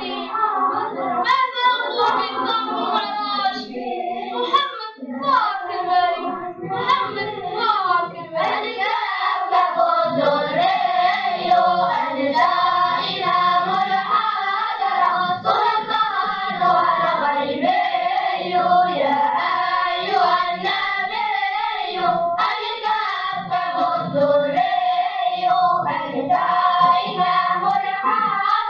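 A children's choir singing an Arabic devotional praise song in unison, to hand clapping.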